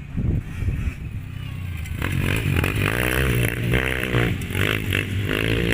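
Motocross dirt bike engine revving, blipped up and down several times from about two seconds in, over a steady low rumble.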